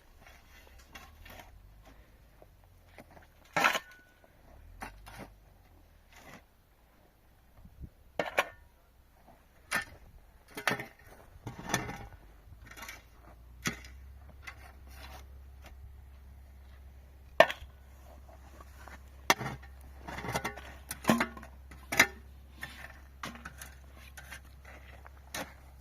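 Irregular sharp knocks and clacks, more than a dozen spread unevenly, like wood or tools being struck or handled. The loudest comes a little past halfway. A faint low hum sets in about halfway through.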